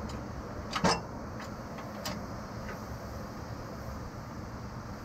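A few short clicks and a knock from hands handling metal parts and tools, the loudest just under a second in and a smaller one about two seconds in, over a steady low hum.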